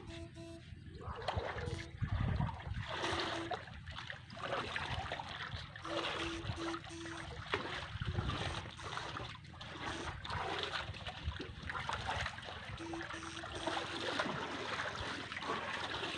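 Water splashing and trickling in a concrete irrigation canal, over irregular rustling and a few dull thumps. Runs of faint, short, low beeps come and go.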